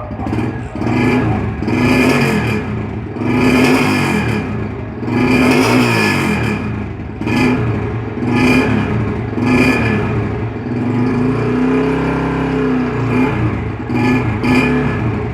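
125 cc motorcycle running through a loud aftermarket Roncar Turbo 'bate-lata' exhaust, the throttle blipped over and over so the engine revs up and drops back about every one to two seconds, with one longer, slower rev about two thirds of the way through.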